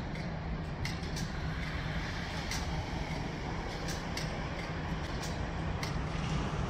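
Melbourne tram running at a city tram stop: a steady low rumble with scattered sharp clicks.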